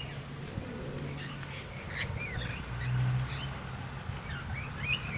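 Mixed birds at a feeding flock (rainbow lorikeets, noisy miners and blue-faced honeyeaters) giving short chirps and squawks, most of them in the second half, over a low steady hum.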